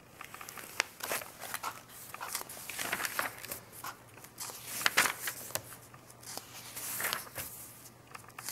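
Glossy magazine pages being turned and handled: crisp paper rustling and crinkling in a run of irregular swishes, with sharp crackles here and there.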